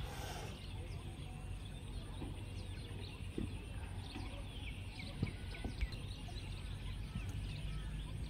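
Outdoor ambience of several birds chirping and twittering over a steady low rumble, with two short taps about five and six seconds in.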